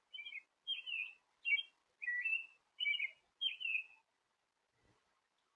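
A songbird calling: a run of seven short chirps, evenly spaced about twice a second, that stops about four seconds in.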